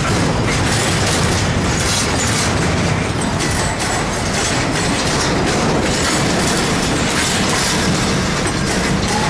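Double-stack intermodal freight train's well cars rolling past close by: a steady, loud rumble of steel wheels on rail.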